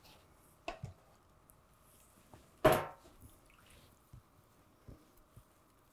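A paintbrush loaded with an alcohol-based ink wash dabs wetly on a latex gut prop, with small squishy sounds. There is a louder, brief wet sound about two and a half seconds in.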